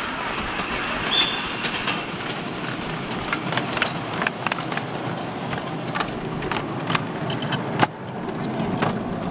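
Miniature live-steam locomotive and its ride-on passenger cars rolling past on the track, a steady rumble broken by many irregular sharp clicks from the wheels on the rails. A brief high tone sounds about a second in.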